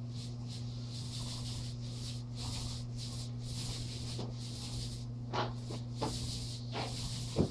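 Paintbrushes stroking paint onto a wall, a soft uneven swishing over a steady low hum, with a few light knocks in the last two seconds, the loudest just before the end.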